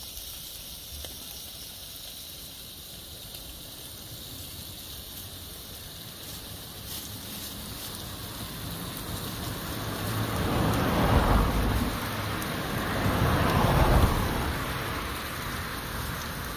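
Steady background hiss, then two road vehicles passing close by, each a rush that swells and fades: the first about ten seconds in, the second a few seconds later.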